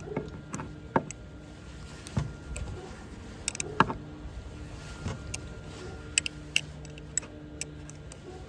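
Turnbuckle being turned to tighten a gate's brace wire: scattered, irregular ticks and clicks of metal parts, the loudest about four seconds in, as the wire is drawn tight.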